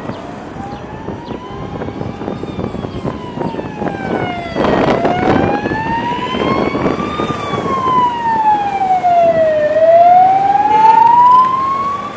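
A vehicle siren wailing, its pitch slowly rising and falling about every two and a half seconds, over the noise of moving traffic. About five seconds in, a louder burst of road noise.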